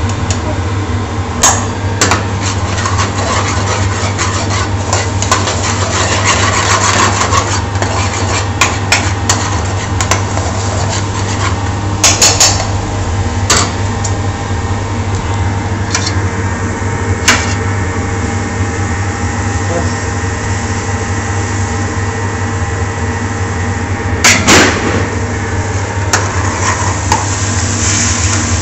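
Metal spoon clinking and scraping against stainless steel spice trays and a small frying pan, sharp clinks every few seconds with a cluster of louder ones near the end, over a steady low kitchen hum.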